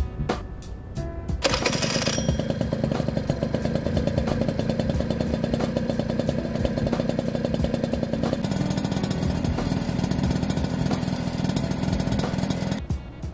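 A Honda Tact 50cc two-stroke scooter engine starts about a second and a half in and runs steadily through its aftermarket Chameleon exhaust, then cuts off near the end. It is running well on a replacement carburettor.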